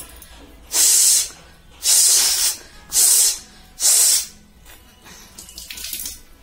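Four forceful blasts of air blown out through the nose, each about half a second long, less than a second apart.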